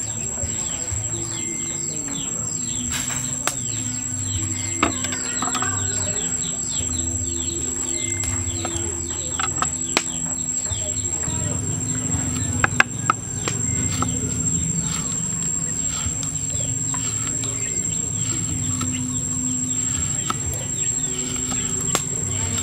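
A kitchen knife slicing red chili peppers on a wooden stump chopping block, with sharp taps scattered through, the loudest just before halfway. Behind it, insects drone steadily at a high pitch and birds chirp.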